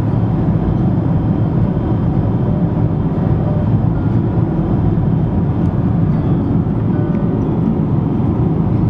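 Steady road noise inside a car cruising at highway speed: a deep, even rumble of tyres and engine with wind.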